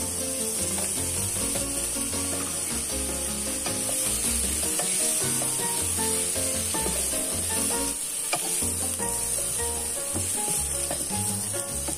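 Pork pieces sizzling in a hot nonstick pan, stirred and scraped with a wooden spatula, with a steady frying hiss. Background music plays underneath.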